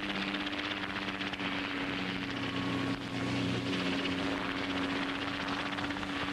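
Scheutzow Bee light helicopter in flight: its engine and rotor make a steady drone with a fast, fine flutter.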